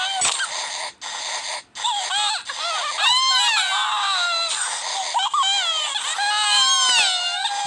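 Pony crying sound effects: several high-pitched voices wailing and sobbing at once, their pitch sliding up and down, with brief cuts about one and two seconds in.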